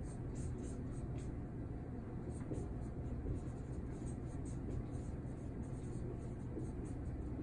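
Dry-erase marker writing on a whiteboard: a run of short, irregular scratchy strokes over a low steady room hum.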